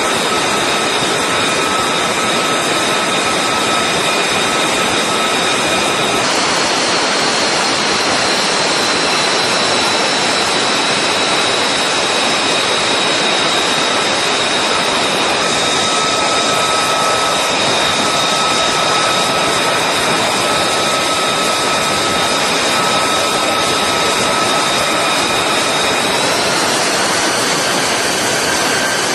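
F-35C's Pratt & Whitney F135 turbofan running at close range: a loud, steady rushing hiss with a high whine over it. The whine shifts pitch a couple of times and rises near the end.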